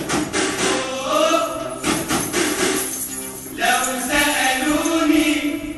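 Recorded Arabic pop song playing, with singing over a percussion beat and bright jingling; the music thins out briefly about three seconds in.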